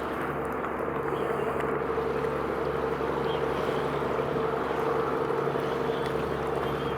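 A ship's engine running steadily: a constant drone with a held hum over a wash of noise.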